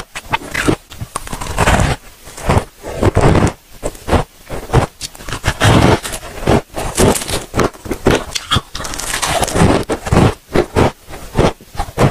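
Close-miked crunching of chunks of powdery freezer frost bitten off a handful and chewed, a fast, irregular run of crunches in clusters with short pauses between bites.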